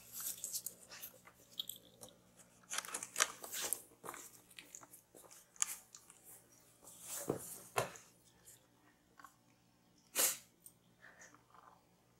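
Cardboard crackling and scraping in irregular short bursts as a cat shifts and rubs about inside a cardboard cat house.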